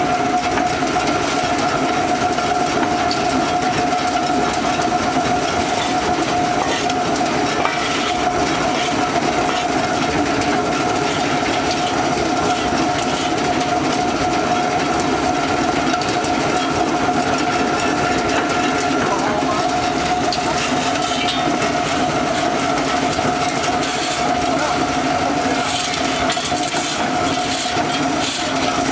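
XGJ850 vertical-die centrifugal pellet mill running steadily while pressing bamboo sawdust into pellets: a constant loud mechanical din with a steady whine. A shovel scrapes on the ground near the end.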